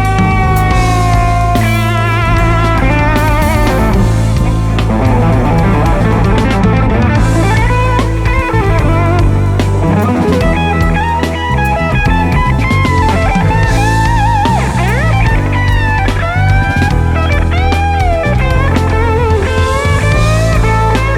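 A band playing soul-funk, led by an electric guitar playing a lead line of bent, sustained notes with wide vibrato over bass guitar and drums.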